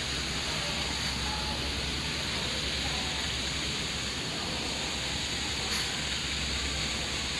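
Steady hiss of falling rain, with a low rumble underneath.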